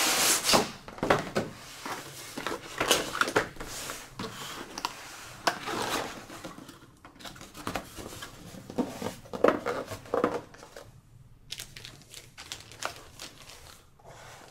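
A keyboard's retail box and packaging being opened and handled by hand: irregular rustles, scrapes and light knocks.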